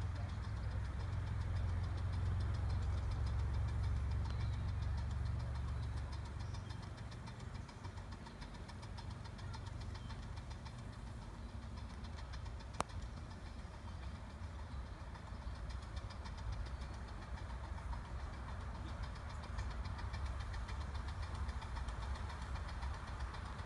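Pacific-type (4-6-2) live-steam ride-on scale locomotive running at a distance, with a low rumble that fades after about six seconds and a single sharp click about halfway through.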